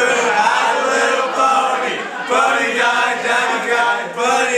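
A group of young men singing a song together, with brief breaks between phrases about two and four seconds in.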